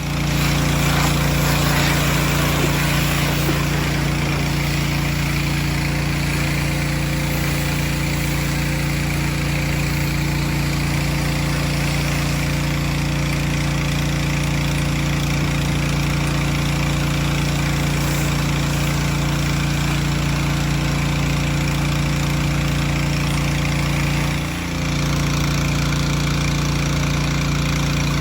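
A motor-driven machine runs steadily and loudly, giving a constant low hum with a hiss above it. It dips briefly about 24 seconds in, then carries on.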